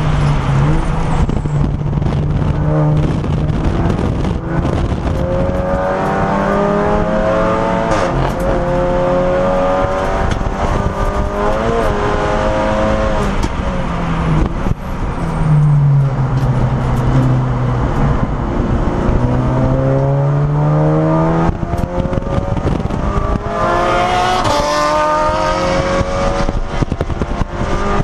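Audi S3 race car's turbocharged four-cylinder engine heard from inside the cabin at racing speed: it pulls hard with rising revs through two upshifts, the revs then fall in steps through downshifts, and it accelerates again near the end.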